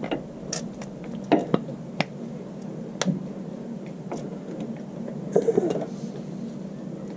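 Scattered light clicks and clinks of tools and metal parts being handled during brake and hub reassembly, with a short squeaky rub about five seconds in, over a steady low hum.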